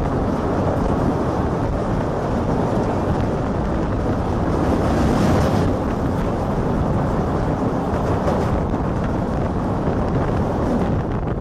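Wind buffeting the microphone over the steady running noise of a train crossing a steel truss bridge.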